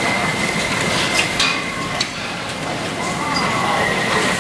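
Tornado wind rushing through a storm-damaged airport concourse: a loud, steady roar with a few sharp knocks of debris about a second and two seconds in. A thin, steady high tone runs through it, dropping out briefly in the middle.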